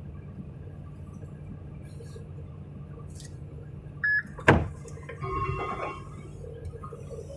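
Kobelco excavator's diesel engine idling with a steady low hum, heard from inside the cab. About four seconds in comes a short high tone, then a single sharp knock, the loudest sound. A brief squeal lasting under a second follows.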